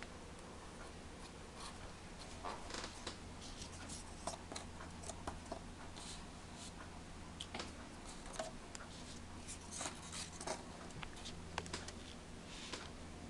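Irregular light clicks and scratches, unevenly spaced, over a steady low hum.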